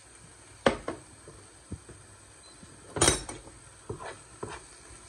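A metal spoon knocking and clinking against a bowl and a frying pan as chopped chicken is scraped into the pan: several separate sharp knocks, the loudest cluster about three seconds in. Faint sizzling of frying onions underneath.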